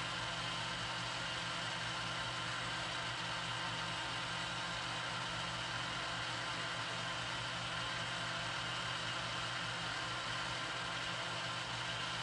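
South Bend lathe running at steady speed, its motor and drive giving an even hum with a few steady tones and no knocks or changes.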